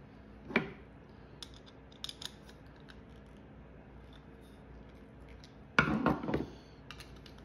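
Small metal clicks and ticks as a steel hand-plane iron and its screw are handled and fitted together. About six seconds in there is a louder burst of metal knocks and clatter as the parts are set down against the cast-iron plane body.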